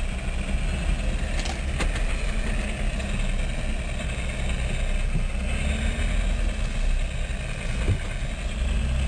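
Off-road vehicle's engine running at low speed, heard from inside the cab while crawling over a rocky trail, with a few sharp knocks and rattles from the body.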